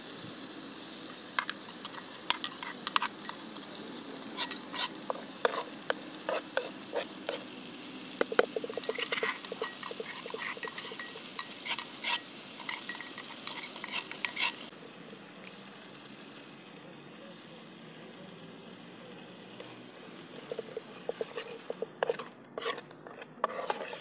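Metal spoon clinking and scraping against a metal pan while a stew is stirred and a small metal cup is emptied into it, over a steady sizzle of the simmering pan. The clinks come thick and fast for the first fourteen seconds or so, then grow sparse.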